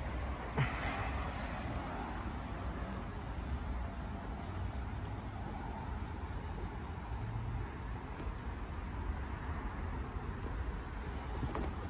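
Crickets trilling steadily, one continuous high-pitched tone, over a low rumble. One sharp tap about half a second in.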